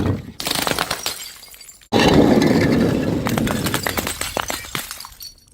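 Glass bottles smashing: the tail of one shatter, then a sudden loud break about two seconds in, with shards tinkling and skittering for a few seconds before fading out.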